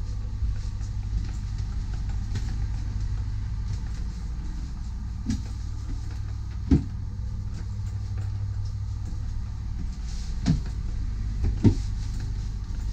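Steady low machinery drone of a motor yacht's onboard systems heard inside a cabin, with a few short thumps about halfway through and twice near the end.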